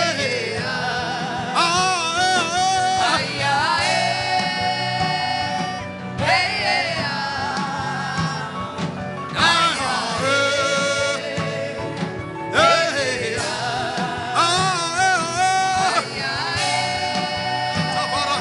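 Worship music: a voice sings long, wavering phrases with heavy vibrato, each about three seconds, over a steady instrumental backing.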